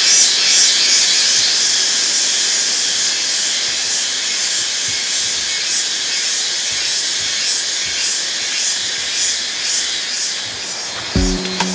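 A chorus of cicadas: a dense, steady high buzz with a regular pulsing beat. Music with a steady beat comes in near the end.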